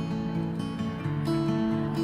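Background music led by strummed acoustic guitar, with sustained pitched notes changing chord by chord.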